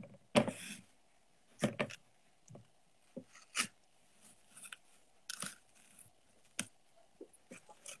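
Scattered short clicks, rustles and crunchy handling sounds, about a dozen spread unevenly, from hands handling food and snack packaging. The loudest comes about half a second in.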